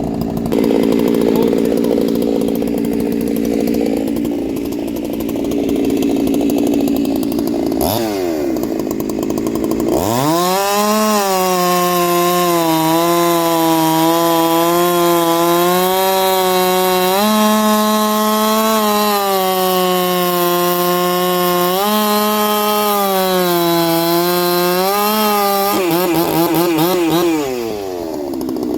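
Chinese 46 cc two-stroke chainsaw idling, revved briefly about eight seconds in, then held at full throttle from about ten seconds in while cutting into a hard ironbark log. Its pitch dips and recovers several times under load before it drops back to idle near the end.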